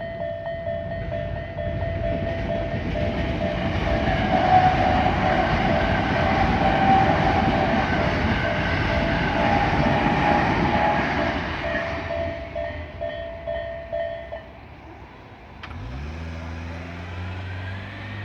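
Japanese level-crossing warning bell ringing in a fast repeating pattern while a Tobu Nikko Line train passes over the crossing, its noise building to a peak in the middle and fading by about twelve seconds in. The bell stops about fourteen seconds in, and near the end a low motor hum rises and then holds steady.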